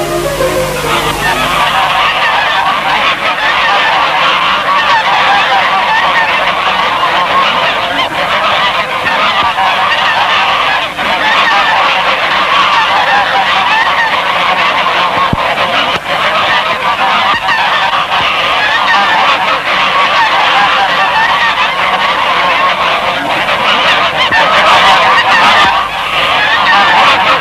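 A large flock of white domestic geese honking and cackling, many calls overlapping without a break, a little louder near the end.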